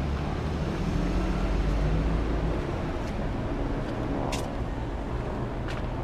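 Road traffic: cars driving past on the road beside the walkway, a steady low rumble that is heaviest in the first couple of seconds. A brief sharp high click or squeak about four seconds in.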